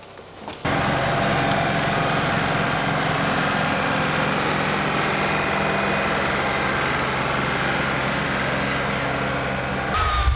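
John Deere compact tractor's diesel engine running steadily at a constant speed, starting about half a second in.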